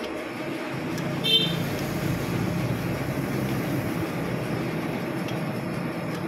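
Steady mechanical drone of metal-working lathe machinery, rising a little about a second in, with one sharp metallic clink soon after.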